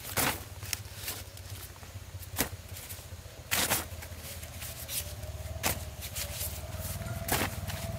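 Ears of corn in their husks handled and dropped into a woven plastic feed sack, which rustles and crinkles in about six short bursts.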